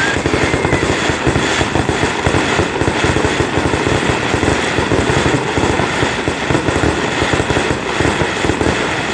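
Fireworks: aerial shells bursting in quick succession, the booms and crackle packed so tightly that they merge into one continuous loud barrage.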